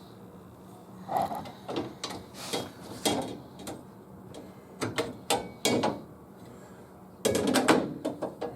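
Metal tools and parts being handled: scattered clinks and short rattles, with a louder cluster of clatter near the end.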